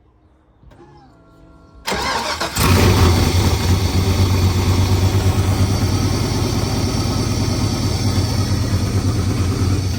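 Car engine cranked by its starter and catching almost at once, about two seconds in, then running loud and steady with a deep drone. It starts promptly now that a loose ground wire is reattached, and it runs loud through an exhaust leak at the cut and refitted header.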